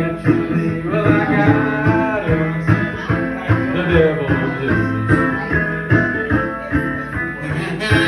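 Live blues played on a plucked banjo over a steady, driving low beat.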